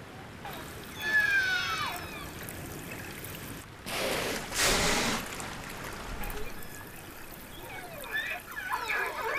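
Killer whales (orcas) whistling and calling, with gliding, falling whistles about a second in and a cluster of calls near the end. In between, a loud rushing blow as an orca surfaces and exhales.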